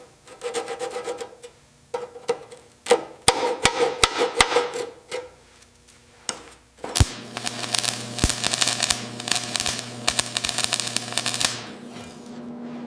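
Hand tools working on metal. A series of sharp hammer-like knocks is followed by one loud strike about seven seconds in, then a dense run of fast clattering scraping until near the end.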